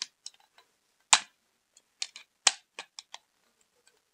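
Hard plastic of a PS2 controller clicking and cracking as it is pried apart to free its second joystick: a series of sharp snaps, the loudest about a second in and again halfway through.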